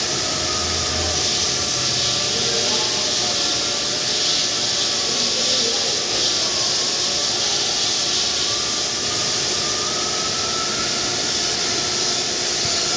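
A damp dressing stick swept up and down against a polishing wheel spinning in a granite CNC machine's spindle: a steady hiss with faint wavering whines underneath.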